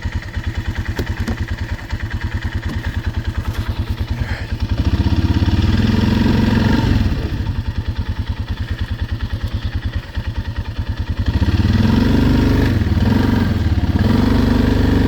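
Small engine running with an even, fast beat, twice swelling into louder, heavier running for a few seconds, about five seconds in and again about eleven seconds in, as it works to pull a mower stuck in mud back out.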